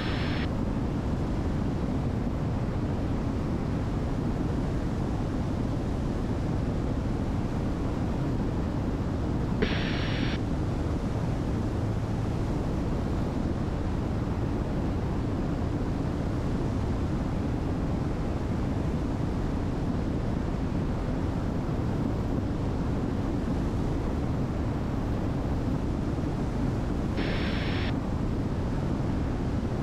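Steady drone of a Diamond DA62's twin turbo-diesel engines and airflow, heard inside the cabin in cruise flight. Two short bursts of hiss come about ten seconds in and again near the end.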